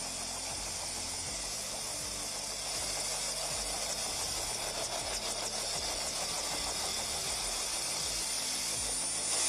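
An engine running steadily under a constant hiss with a thin high whine. It grows a little louder about a third of the way in.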